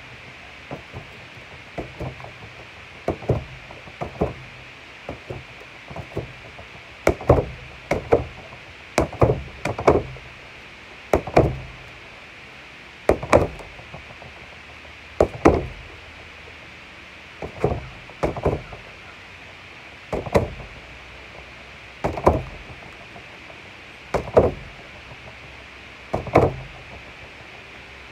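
Gloved punches landing on an Everlast Powercore free-standing punching bag: sharp thuds, lighter and scattered for the first few seconds. Harder blows then follow, singly or in quick pairs, about every one to two seconds.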